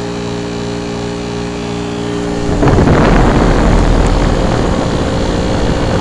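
Carrier TECH2000 Silencer System 5-ton heat pump condensing unit running in cooling mode, a steady hum with several held tones from its compressor and fan. About two and a half seconds in, a louder rushing noise with a heavy low rumble joins as the fan's discharge air blows across the microphone.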